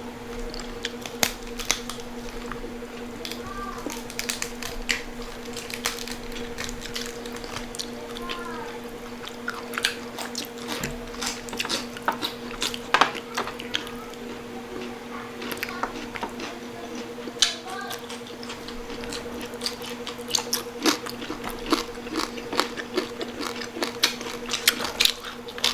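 Close-up eating sounds of crispy pata: crunchy bites into fried pork skin and wet chewing, with many irregular sharp crackles, over a steady hum.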